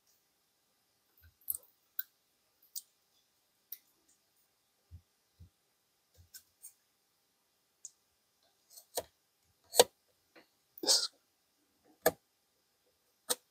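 Aluminum foil tape being pressed and smoothed into a rifle stock's action-block recess with a tool, bedding the action: scattered light clicks, taps and foil crinkles, sparse at first and louder and closer together in the second half.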